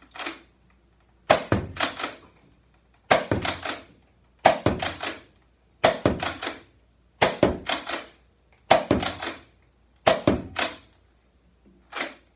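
Nerf Rival Takedown pump-action foam-ball blaster being pumped and fired over and over. Each pump-and-shot is a quick run of sharp plastic clacks and a thunk, repeating about every one and a half seconds.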